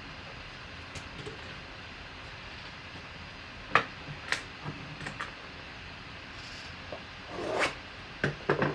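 Hands handling card-box packaging: a few sharp taps and clicks, the loudest about four seconds in, and a brief rubbing scrape near the end, over a steady background hiss.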